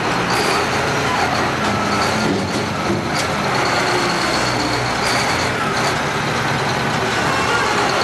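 Caterpillar wheel loader's diesel engine running hard as its bucket pushes a large marble block onto a truck's trailer, with a couple of short knocks about three and five seconds in.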